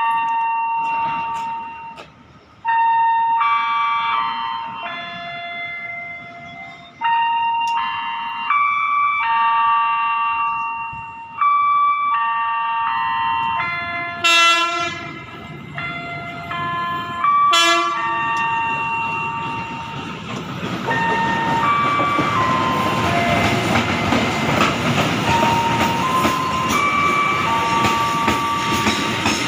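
Vintage ESS 3200 'Bonbon' electric locomotive hauling wooden coaches into the station. It sounds two short horn blasts about 14 and 17 seconds in, then runs past close by with a growing rumble and rail noise. A slow melody of single held notes plays throughout.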